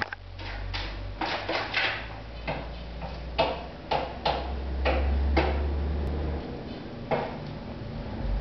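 Irregular soft clicks and scuffles, a few a second, from two cats play-wrestling in a fabric pet bed, over a low steady hum that stops about six and a half seconds in.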